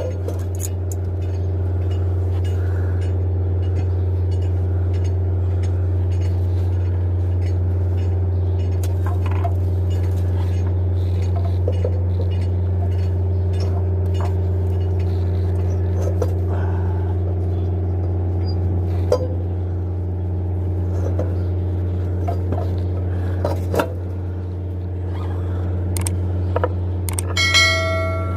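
Mercedes-Benz Actros truck diesel engine idling steadily, with the turbo refitted on new studs and an improvised gasket. Scattered light metallic clinks sound over it, and a short ringing tone comes near the end.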